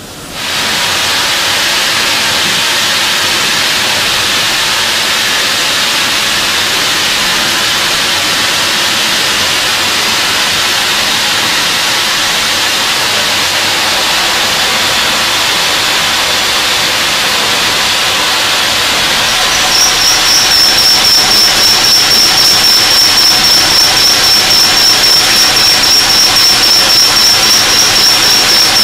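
Burgsmüller L5.4 thread whirling head machining a steel screw element: a loud, even hiss starts suddenly, and about twenty seconds in a steady high-pitched whine with a fast, even pulsing joins it.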